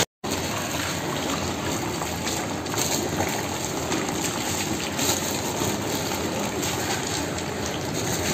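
Steady hissing noise of wheat halwa cooking hot in a large iron kadai over the fire.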